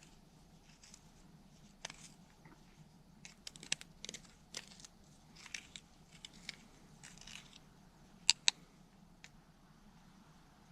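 Scattered faint clicks and scrapes of hands working on parts and tools, with two sharper clicks close together near the end.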